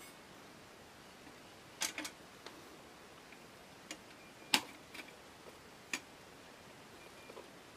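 Metal parts of an Optimus 1200M kerosene lantern clinking and clicking as they are handled and the inner chimney is pulled up off the lantern: a handful of sharp separate clicks, a quick pair about two seconds in and the loudest about four and a half seconds in.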